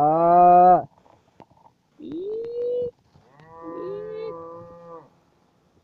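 Cattle bellowing: three long, low moos, the loudest at the very start, a shorter one that rises in pitch about two seconds in, and a longer, steadier one from about three and a half to five seconds. The cattle are bellowing because they are hungry.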